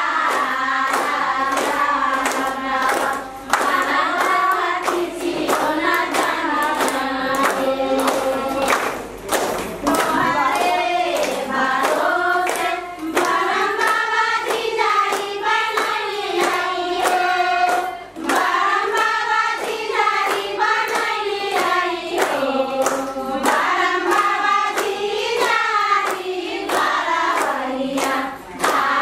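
Group of voices singing a song together, with hand claps keeping a steady beat throughout.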